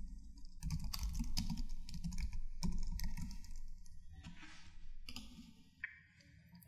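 Typing on a computer keyboard: quick runs of keystrokes that thin out after about three seconds and stop about five seconds in.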